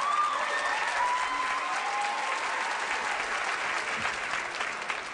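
Large audience applauding and cheering steadily, with a few shouts rising out of the noise early on.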